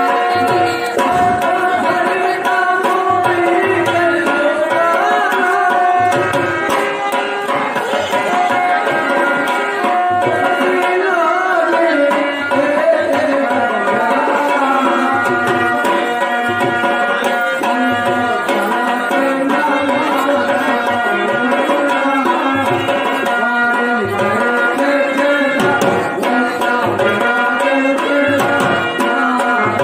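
Instrumental accompaniment for a Telugu stage drama: tabla drumming under a melody of long held notes.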